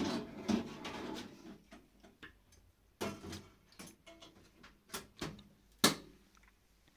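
Clatter and knocks of a round electric pizza oven as a pizza is put in and its lid handled: a burst of clatter at the start, then several separate sharp knocks, the loudest near the end.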